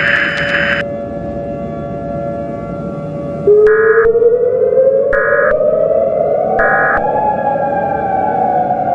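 Civil defense siren winding up about three and a half seconds in, its pitch rising steadily and then slowly falling as it holds, with three short beeps while it climbs. Before it there is a steady hum, with a hiss that stops about a second in.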